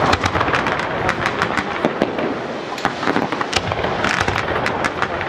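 Aerial fireworks going off in rapid succession: a dense, continuous barrage of cracks and bangs with crackling between them.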